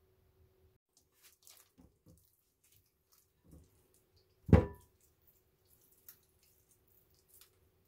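Quiet kitchen handling sounds: a few small taps and drips over a faint steady hum, and one sharp clunk with a brief ring about halfway through.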